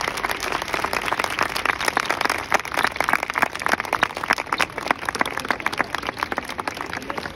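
Small crowd applauding: many hands clapping, dense and steady.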